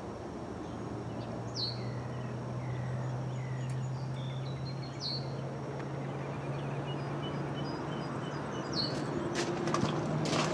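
Outdoor ambience: birds chirping several times, short high falling notes, over a steady low hum and background noise, with a few clicks near the end.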